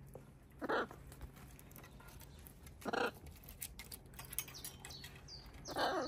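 Macaw giving three short squawks about two seconds apart, with faint clicks in between.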